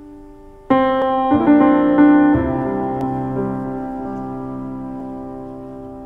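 Background piano music: a chord struck about a second in, a few more notes just after, then left to ring and slowly fade.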